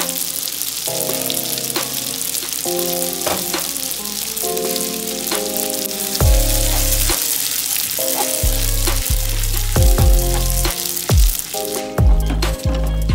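Spaghetti sizzling in a hot pan as a wooden spatula tosses it with pesto, over background music whose bass line comes in about six seconds in.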